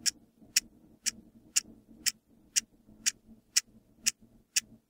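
Clock ticking steadily, two sharp ticks a second, evenly spaced.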